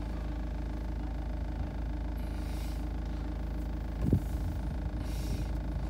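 A van's engine idling, a steady low hum heard from inside the cab, with one short louder sound about four seconds in.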